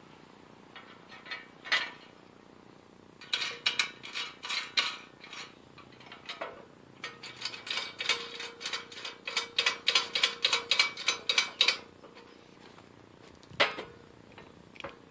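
Socket ratchet clicking in two quick runs of about four clicks a second, tightening hardware on a steel shop press frame. Near the end comes a single metal clunk.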